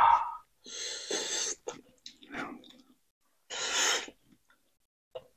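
A person's breathy exhalations, three short hisses of breath with pauses between.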